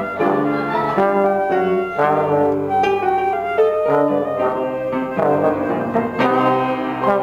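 A live instrumental trio of flute, slide trombone and piano playing a melody together, with sustained notes changing every half second or so.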